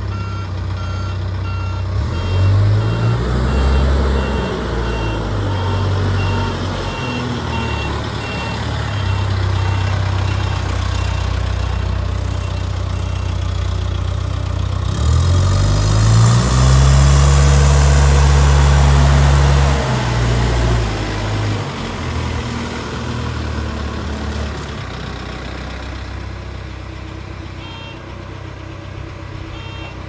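Case 851EX backhoe loader's diesel engine running as the machine drives and manoeuvres, revving up about halfway through and loudest for a few seconds before settling. A reversing alarm gives repeating short beeps at the start and again near the end.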